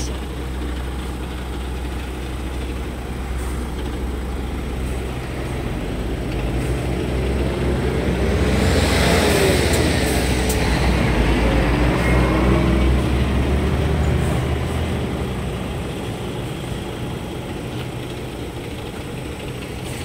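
Semi-truck's diesel engine running at low speed during slow maneuvering, with a steady low drone; about halfway through it grows louder with a pitch that dips and rises and a brief hiss, then eases back to a steady run.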